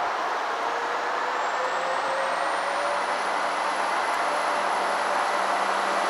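Diesel train running on the line, a steady rush of noise with a faint whine that slowly rises in pitch.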